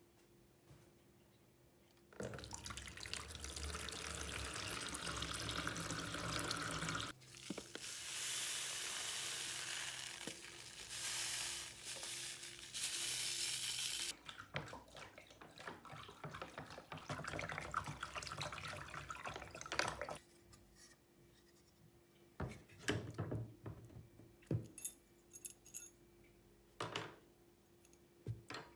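Water running from a tap for about eighteen seconds, its sound changing twice as the flow hits different things, then shut off. Scattered small clicks and knocks follow.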